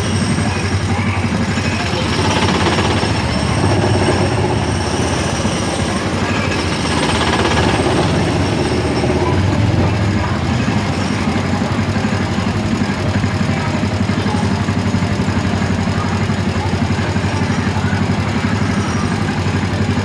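Small gasoline engines of Autopia ride cars running close by with a loud, steady, rough drone. The sound swells slightly a couple of times as the cars creep forward in the queue.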